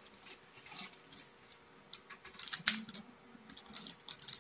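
Light plastic clicks and taps from handling a Huawei Honor Holly smartphone with its back cover off and its removable battery out, with one sharper click about two and a half seconds in.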